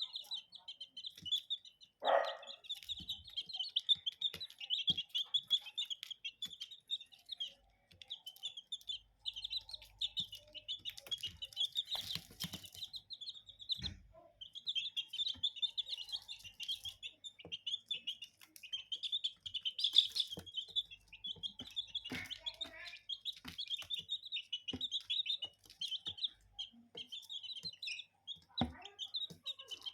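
Baby chicks peeping constantly in high, rapid chirps, with scattered short taps as they peck at feed. A louder, lower call stands out about two seconds in.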